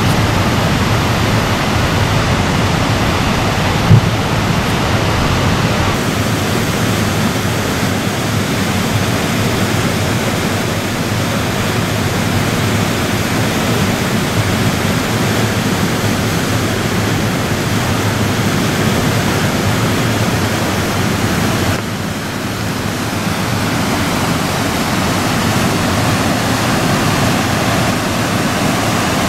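Whitewater rushing through artificial river rapids below a hydroelectric dam: a steady, dense rush of churning water. There is a brief thump about four seconds in, and the sound dips briefly about 22 seconds in.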